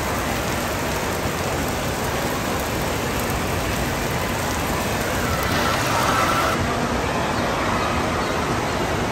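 Steady rush of falling and splashing water from water-park features: streams pouring off a play tree and water running down kids' slides into a pool. There is a slight swell about six seconds in.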